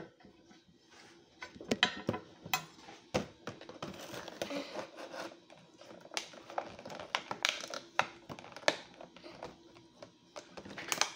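Scissors snipping and clear plastic packaging crinkling as a toy box's plastic wrap and tape are cut open: a string of irregular clicks and rustles.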